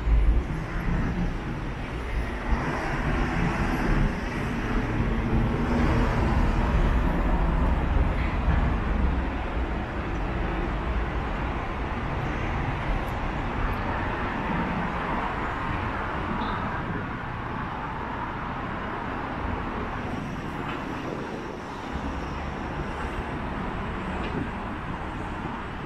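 Rumble of passing vehicles and general street noise. It is heaviest and deepest in the first ten seconds or so, then settles into a steadier, lighter background.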